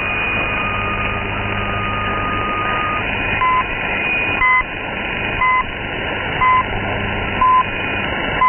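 Shortwave broadcast reception with static hiss and a steady whistle, then time-signal pips: five short beeps a second apart and a longer sixth beep, marking the top of the hour.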